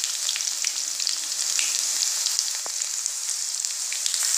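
Crushed garlic frying in hot oil in a kadai: a steady high sizzle with many small crackling pops.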